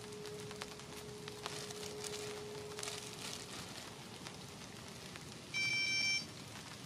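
Light crackling and rustling, with a faint steady hum that stops about three seconds in. Near the end comes a single high electronic beep lasting just over half a second.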